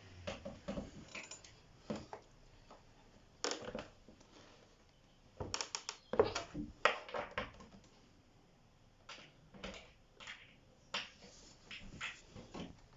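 Irregular clicks and knocks of hand tools and particleboard wardrobe parts being handled during flat-pack assembly, coming in small clusters with quiet gaps between.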